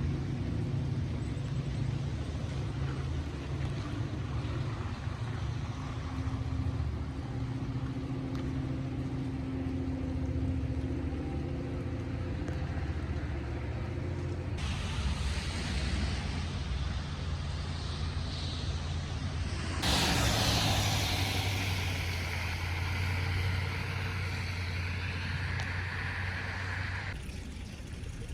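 Car driving: a steady low engine and road rumble with tyre hiss, changing abruptly three times as separate stretches of driving follow one another.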